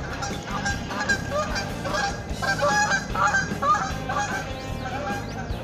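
Geese honking repeatedly, several calls overlapping, loudest in the middle.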